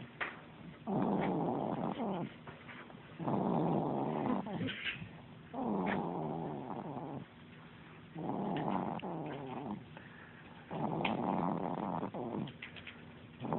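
Steady rhythmic snoring, five snores about two and a half seconds apart, each lasting about a second with a short quiet breath between.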